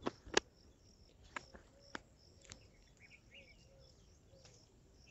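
Faint forest ambience: insects chirping in a steady repeat about twice a second, with a few short bird calls. A handful of sharp cracks sound in the first two and a half seconds.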